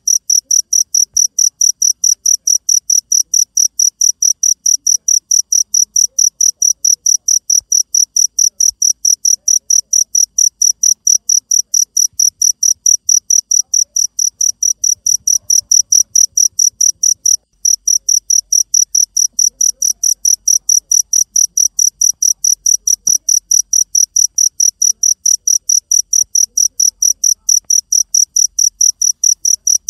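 Cricket chirping in a fast, even train of short high-pitched pulses, several a second, with one brief pause just past the middle.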